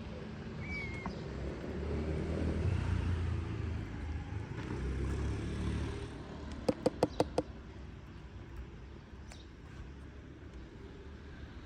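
A car passing in the street, a low rumble that swells and fades over a few seconds. About two-thirds of the way through, five sharp clicks come in quick succession.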